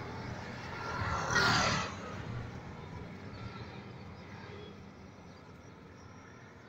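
A road vehicle passing close by: a rush of noise that swells to its loudest about a second and a half in, then fades, leaving faint distant traffic.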